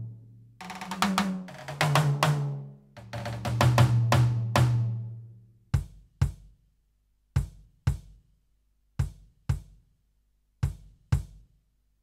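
Roland TD-17KVX electronic drum kit played through its module. A fill steps down in pitch across the drums with cymbals ringing over it. From about halfway there are four pairs of short, sharp hits with brief silences between them.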